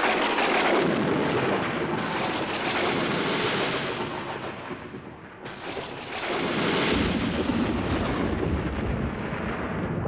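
Loud rolling thunder that eases about five seconds in and then builds again.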